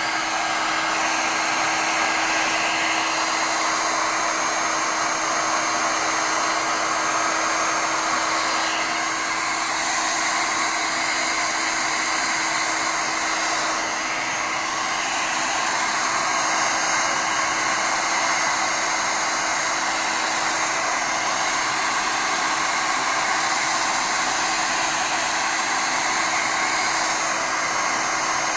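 Handheld hair dryer running steadily, a constant rush of air with a steady low hum and a faint high whine, drying a freshly washed furnace filter.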